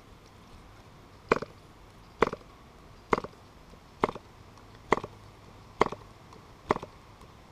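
KMD-2.5 compression-ignition model engine being flicked over by hand at the propeller: seven sharp clicks, about one a second, as the prop snaps through compression. The engine is not firing.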